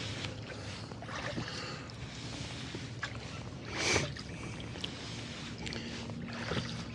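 Oars pulling a rowboat through calm water in a steady rhythm, one stroke about every two and a half seconds, each stroke a swish of water. The stroke near the middle is the loudest.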